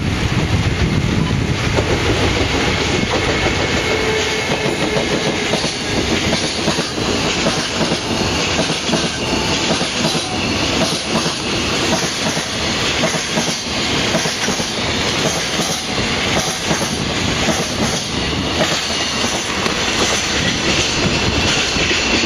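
Freight train passing, its wagons clattering steadily over the rail joints.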